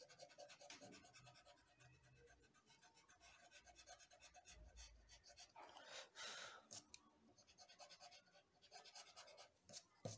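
Faint graphite pencil strokes scratching on paper in quick runs of short strokes, with a louder brushing sound about six seconds in and a short knock near the end.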